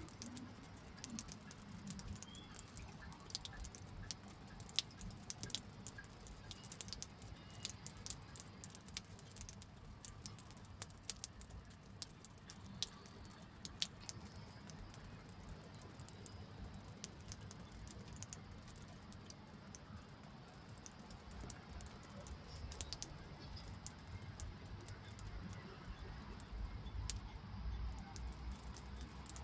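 Faint, irregular patter and ticking of water drips after rain, over a low steady rumble.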